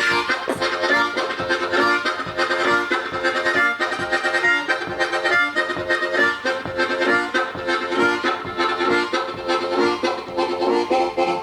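Solo diatonic harmonica playing a train-imitation piece: fast, rhythmic pulsing chords that mimic a running train.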